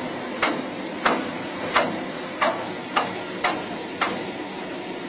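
Padfoot soil compactor working on a steep dirt slope: a steady machine noise with seven sharp metallic clicks, each falling quickly in pitch, coming about every half second and stopping about a second before the end.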